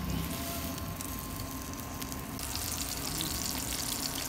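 Ground-beef burger patties sizzling as they pan-fry in butter, a steady crackling hiss that grows clearly louder about halfway through.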